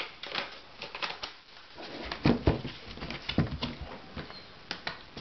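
Clicks and knocks from an Acer Aspire 1410 laptop being handled as its battery pack is fitted, the laptop is set down on a desk and its lid is opened. The loudest knocks come about two seconds in.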